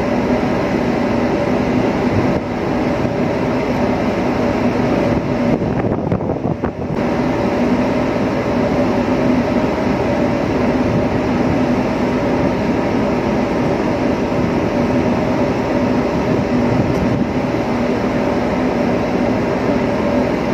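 Steady drone of a ship's machinery: a loud, even rumble with a constant hum in it, dipping briefly about six seconds in.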